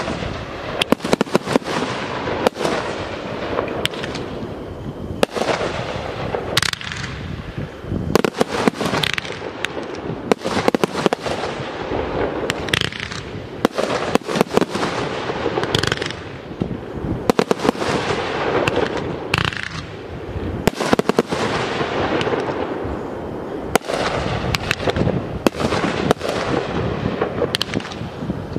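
Professional aerial fireworks display: shells bursting in quick, irregular succession. Sharp bangs come several a second at times, over a continuous din of bursts.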